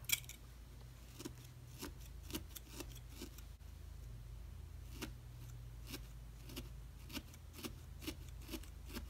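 Felting needle tool jabbing repeatedly into a wool bead on a rice-filled burlap pad: faint soft taps about two a second, after one louder click at the start.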